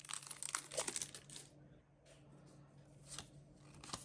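Yu-Gi-Oh! trading cards being handled and slid through by hand, with papery rustling for about the first second and a half. After that it is quiet, with a single sharp click about three seconds in and a few faint ticks near the end.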